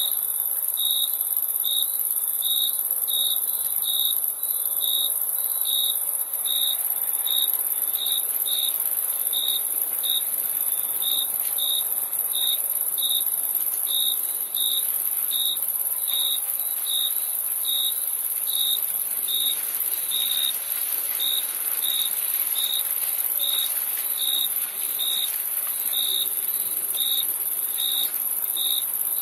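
Crickets chirping: short, evenly spaced chirps a little more than once a second, over a steady high-pitched trill.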